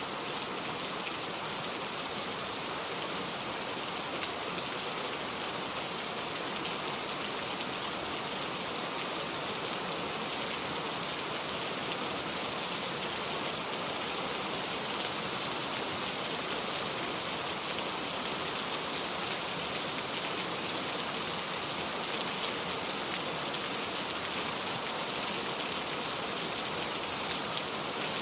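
Steady rain falling, with the fine patter of many individual drops hitting a surface.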